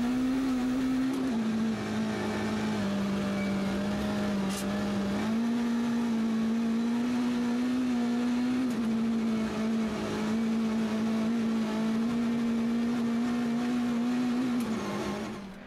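Citroën C2 R2 rally car's four-cylinder engine held at high revs, heard from inside the car, its pitch stepping slightly down and up a few times as it drives a snowy special stage. Near the end the revs and level drop away.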